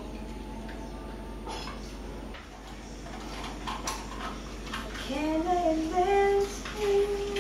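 Scattered clicks and clatter of kitchen utensils and jars on the counter, then about five seconds in a woman starts singing a tune.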